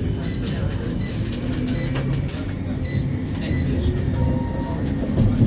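CAF Urbos 3 tram running along the track after departing a stop, heard from on board: a steady low rumble with faint scattered clicks.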